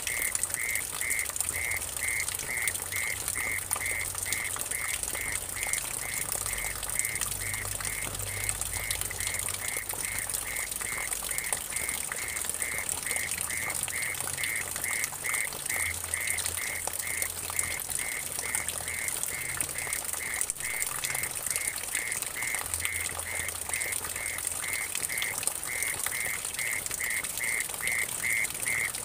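Mole cricket calling with a steady pulsing trill, about three pulses a second, over water splashing and trickling into a puddle.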